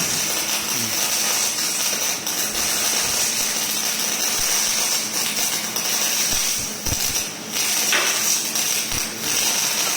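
Arc welding torch on a Dobot CR robot welding station, laying a fish-scale weld: a steady crackling hiss of the arc, dipping briefly twice in the last few seconds.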